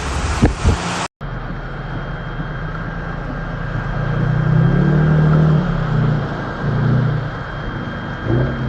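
A brief gust of wind noise that cuts off, then a car's engine running under steady road noise, its pitch rising and falling for a few seconds midway.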